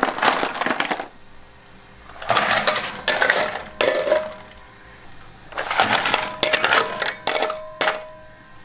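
Snail shells clattering in a stainless steel bowl as they are scooped from a plastic tub and tipped into a pot of water to be boiled. Three bursts of clatter, with the metal bowl ringing briefly.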